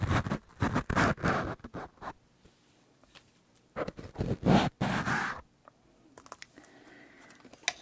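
Fingers scratching and rubbing directly on the foam windscreens of the microphones, close up, in two rough bouts: the first about two seconds long, the second starting about four seconds in and lasting about a second and a half.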